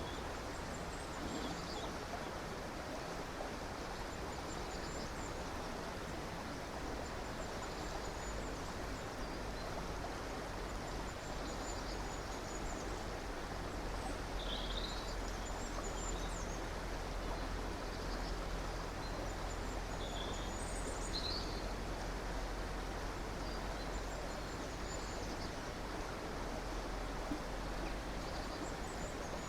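River water running in a steady rush, with small birds giving short high chirps and trills scattered over it.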